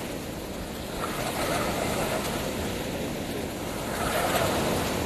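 Sea surf washing and breaking in the shallows, a steady rushing noise with a low rumble underneath, swelling slightly about a second in and again near the end.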